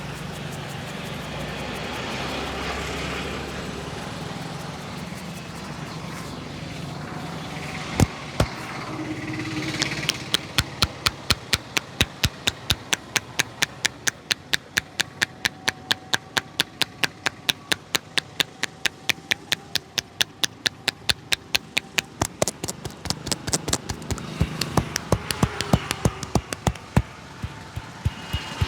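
A barber's hands tapping rhythmically on a head during an Indian head massage, fast and even at about four or five sharp taps a second, starting about a third of the way in. Before that, a steady street background with a single sharp tap.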